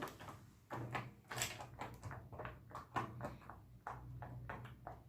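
Bubbles of a silicone pop-it fidget toy being pressed in, a series of soft, irregular pops.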